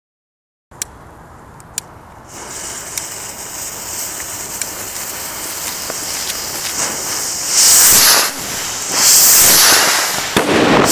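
Two sharp clicks, then a Nico BS420 firework rocket hissing as it burns, starting about two seconds in and growing steadily louder, with two loud rushing surges of hiss near the end.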